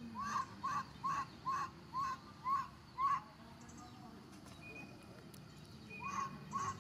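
A bird calling a run of about seven short, evenly spaced notes, a little over two a second, each rising then falling; a second run starts near the end.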